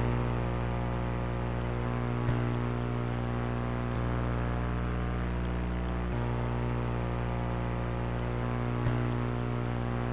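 Steady electrical hum with static hiss from the audio channel of an analog FPV video link recorded along with the camera footage, with faint clicks where the footage cuts between clips.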